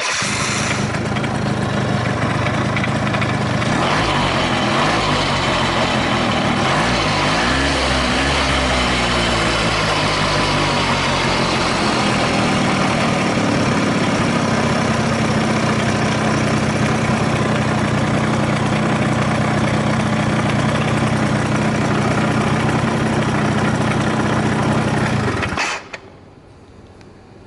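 Yamaha Jog90 (3WF) scooter's two-stroke single-cylinder engine starting, revved a few times with the pitch rising and falling, then idling steadily until it is switched off near the end. It runs without any abnormal noise.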